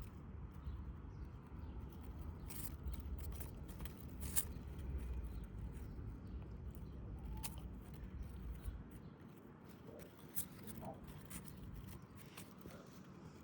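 A cat playing in long grass: rustling and scattered soft crunching clicks as it snaps at and bites the grass blades. A low rumble underneath dies away about nine seconds in.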